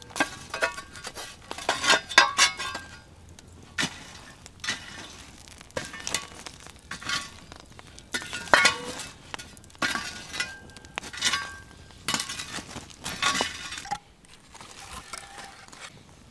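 Metal shovel scraping and clinking against fire-ring rocks and embers while raking campfire coals: a string of irregular sharp knocks and clinks, a few ringing briefly.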